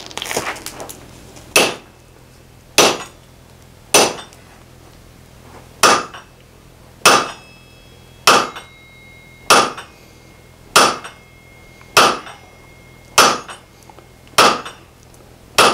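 Steady, evenly spaced hammer blows, about one every 1.2 seconds, striking a steel punch driven through a hot hammer-head block on an anvil, each blow with a short metallic ring. The punch is close to breaking through, with the slug about to shear out.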